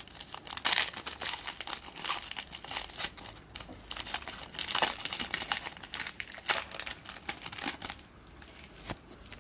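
Foil wrapper of a Panini Revolution basketball card pack torn open and crinkled by hand, a dense crackling that dies down near the end.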